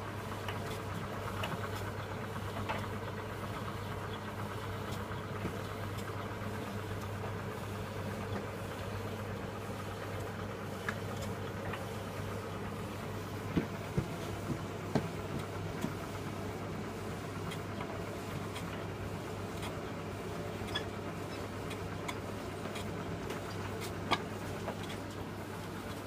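Philips D180 electronic tumble dryer running: a steady motor hum with the drum turning, and a few light clicks about halfway through and again near the end.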